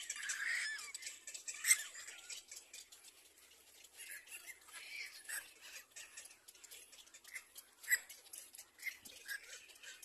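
Little black cormorant chicks crying to beg for food in the nest: a run of short, high-pitched calls, the loudest at the start and at about two and eight seconds in.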